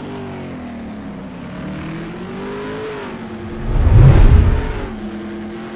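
A car engine running with a steady, slightly wavering note, swelling to a loud low rumble about four seconds in, then settling back.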